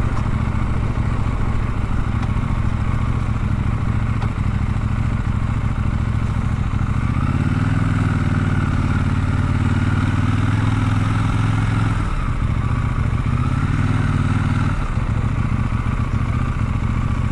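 Motorcycle engine running steadily while riding, with stronger throttle for a few seconds around the middle, a brief easing off, then a shorter burst of throttle before it settles back.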